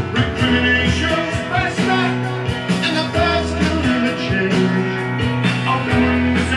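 A rock-and-roll record with singing, playing back on a Sansui FR-3060 belt-drive turntable.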